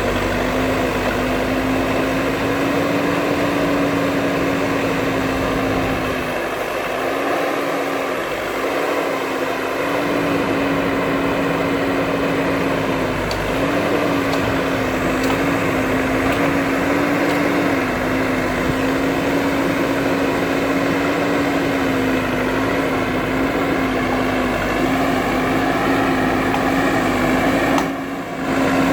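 JCB 3DX backhoe loader's diesel engine running steadily under work, its pitch wavering slightly as the load changes. The deep rumble beneath it thins for a few seconds about six seconds in.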